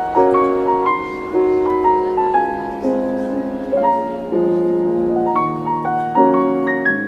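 Lo-fi background music led by a piano playing chords and a melody, a new chord or note struck about every half second to a second.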